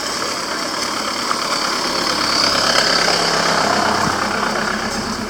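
A motor vehicle's engine running close by over general street noise, getting louder around the middle and then easing off.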